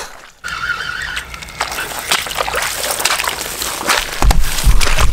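Footsteps and rustling as someone walks through tall weeds, with heavier low thumps near the end.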